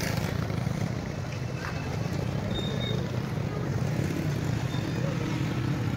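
Steady rumble of street traffic, cars and motorcycles running on a busy road.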